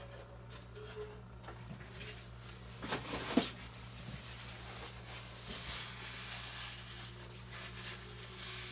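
A brad nailer fires once, a single sharp crack about three and a half seconds in, right after a few knocks of the tool and board being set in place. A low steady hum lies underneath.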